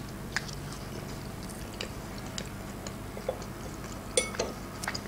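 Eating sounds: scattered small clicks of chewing, then a metal fork clinking against the serving plate about four seconds in.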